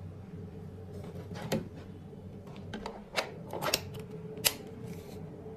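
A few sharp clicks and knocks, the loudest near the end, over a steady low hum.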